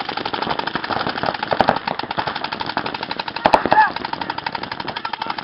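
Paintball markers firing rapid, continuous strings of shots, many a second, with players shouting over the firing; a louder shout comes about three and a half seconds in.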